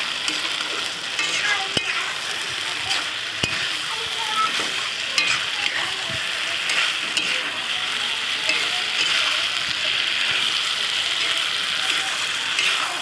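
Okra frying in a karahi with mustard paste and mustard oil, sizzling steadily while a spatula stirs and scrapes through it. A few sharp knocks of the spatula against the pan come in the first few seconds.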